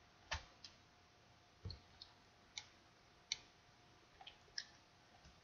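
Faint, irregular clicks of a computer mouse or keyboard at a desk, about eight in five seconds, over near silence.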